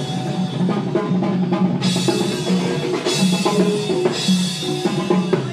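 Music with a steady drum-kit beat: bass drum, snare and cymbals over a bass line.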